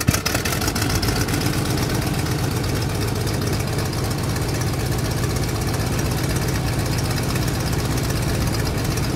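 An engine running steadily with a fast, even chatter and a low throb, cutting in suddenly at the start.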